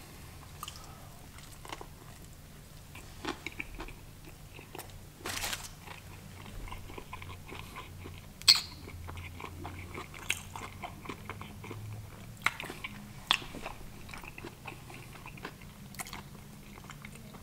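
A person biting into and chewing a breaded fried fish sandwich at close range, with scattered crisp crunches, the loudest about eight and a half seconds in.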